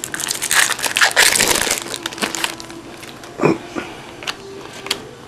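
Trading card pack wrapper crinkling and crumpling as it is opened and handled, in a dense crackly run for the first couple of seconds. After that it thins to scattered small clicks and taps.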